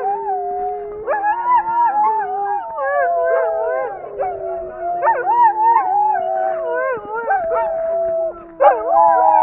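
A hooked-up team of sled dogs howling and yipping together: several long, held howls under many quick rising-and-falling yelps, all overlapping. It is the excited noise of sled dogs in harness, eager to run.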